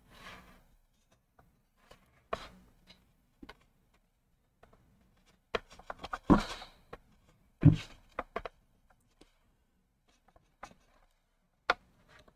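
Scattered taps, clicks and knocks of handling on a workbench while a circuit board is cleaned with a cotton swab; a few sharper knocks stand out about six and eight seconds in.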